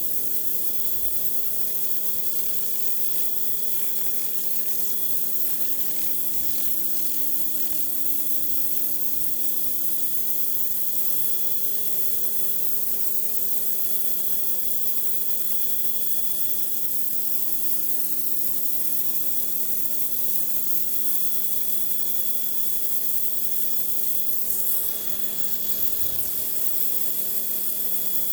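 Pressure washer running steadily: a constant machine hum under the even hiss of the high-pressure water spray on concrete.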